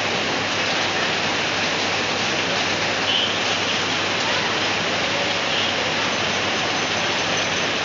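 Rain pouring down steadily: an even, unbroken hiss.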